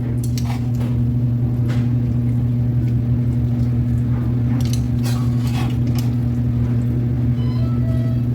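Scattered clicks and scrapes of a utensil against a pan and dish as meat is piled onto slider buns, over a steady low hum.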